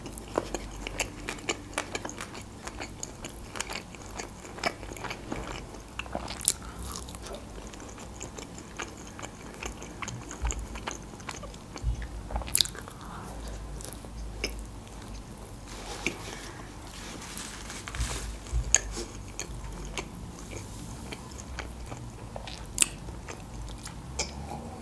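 Close-miked chewing of a soft-bun burger, with many short wet clicks and smacks of the mouth. A sip from a glass of drink comes at the very end.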